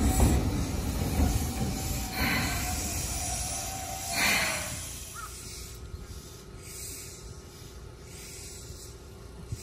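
Seibu 2000-series electric commuter train running along the track, its rolling noise fading over the first few seconds, with two short hisses of air about two and four seconds in. A steady low hum from the train follows.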